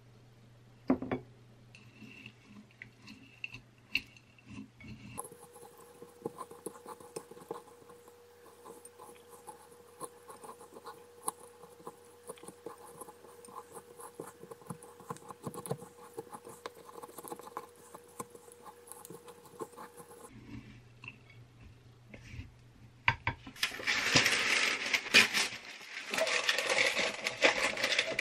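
Two wooden spoons stirring a sticky honeyed mix of oats and nuts in a ceramic bowl: soft scattered clicks and scrapes. About 23 seconds in, a much louder dry crackling rustle takes over.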